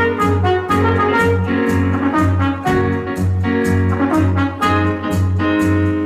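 Up-tempo instrumental show music: brass, led by trumpet, playing over piano, with a steady bass beat and regular cymbal ticks.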